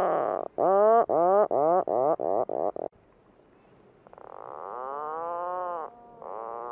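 Atlantic puffin calls: a long, rising-and-falling groan, then a quick run of about seven shorter ones, each briefer than the last, stopping about three seconds in. Two softer drawn-out calls follow later.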